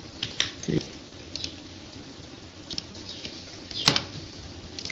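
Scattered sharp clicks from a computer keyboard and mouse being worked, the loudest one about four seconds in.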